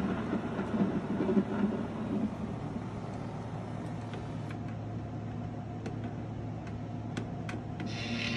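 The electric gear motor inside an animatronic life-size Frankenstein figure runs with a steady low hum as the arms lower to its sides. A few faint clicks come in the second half.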